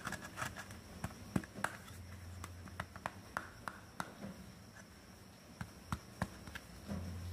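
Hands handling small toy pieces from a doll hairdresser playset: irregular light clicks and taps, a dozen or so, some in quick clusters.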